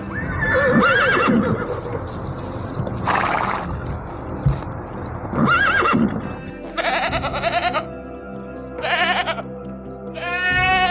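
Steady background music with a series of short animal calls over it, about five separate calls, some arching up and down in pitch.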